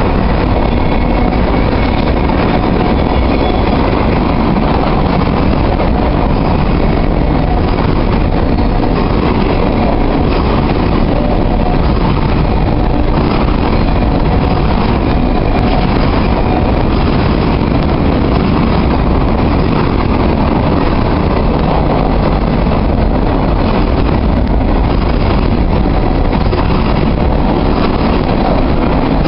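Freight train's covered hopper and tank cars rolling past close by: a loud, steady rumble of steel wheels on the rails.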